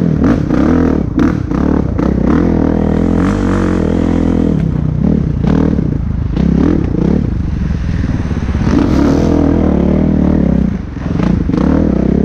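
Kawasaki KX450F's single-cylinder four-stroke engine revving up and falling back under throttle as the motocross bike rides a muddy track, with scraping and clatter from the ride. The throttle shuts briefly about a second before the end, then picks up again.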